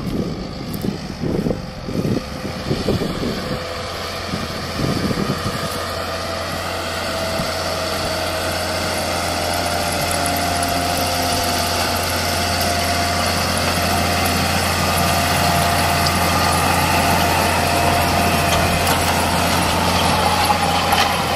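Massey Ferguson tractor's diesel engine running steadily. Over it, a whining tone rises slightly in pitch from about six seconds in as the sound grows louder. Wind buffets the microphone for the first few seconds.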